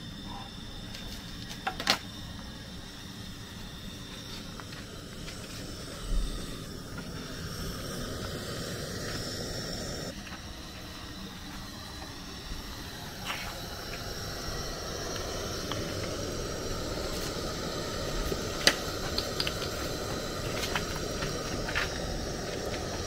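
Gas burner on a gas cylinder hissing steadily under a frying pan, growing louder in the second half, with a few light knocks and clinks.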